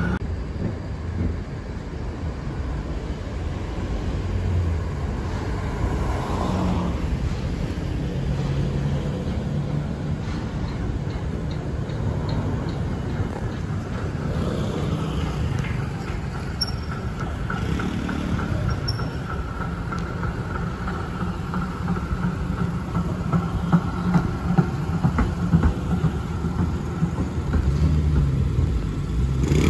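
Trams and road traffic passing on a city street: the electric trams' running rumble on the rails, mixed with cars driving past, as a steady, continuous rumble.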